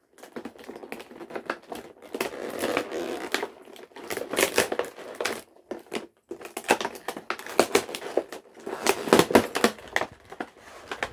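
Plastic and card doll packaging handled and pulled open by hand: irregular rustling, crinkling and clicking, with a short pause about halfway through.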